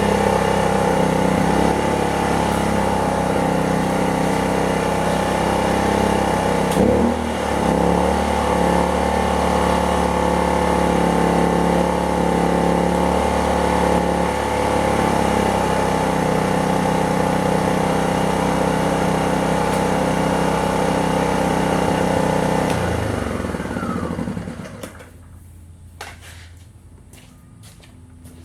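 Predator 2500 inverter generator's engine running steadily under an air compressor's start-up load, which overloads it. About 7 s in there is a knock and the engine note shifts; near the end the engine note falls away and it stops, leaving faint clicks.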